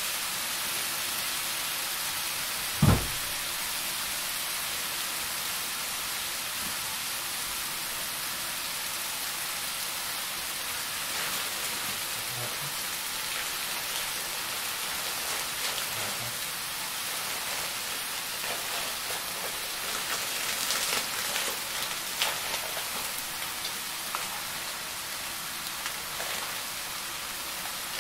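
Food sizzling steadily in a frying pan on the stove, an even hiss throughout. A single heavy thump sounds about three seconds in, and light clicks and rustles come through in the last part.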